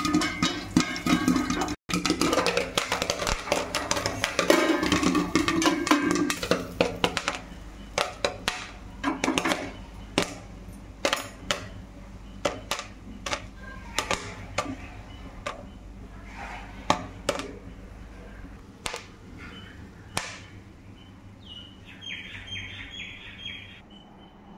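Popcorn kernels popping inside a covered metal pot: a dense, rapid crackle of pops that thins out after about seven seconds to scattered single pops, as the batch nears done.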